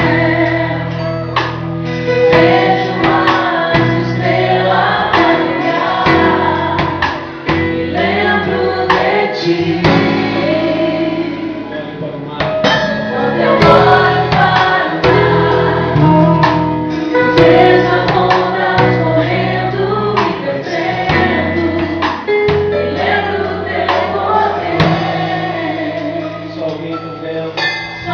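A group of voices, women and men, singing a Christian worship song in a gospel style over instrumental backing with a steady beat.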